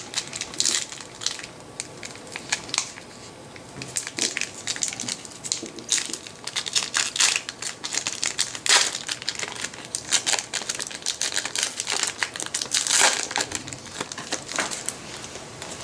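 Foil wrapper of a Yu-Gi-Oh! Metal Raiders booster pack crinkling and crackling in irregular bursts as it is opened by hand, with louder crackles near the middle and again near the end.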